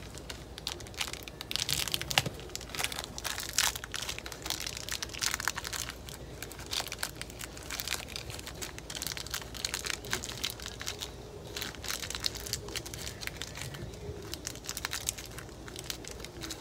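Small parts bag from a carburetor rebuild kit crinkling in the hands as it is handled and opened, an irregular run of crackles and rustles.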